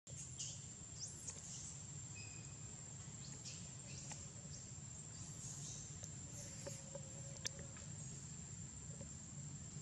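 Quiet forest ambience: a steady high insect drone with scattered short high chirps and one sharp click about seven and a half seconds in.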